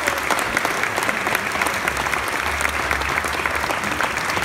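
Crowd applauding, many hands clapping in a steady dense patter.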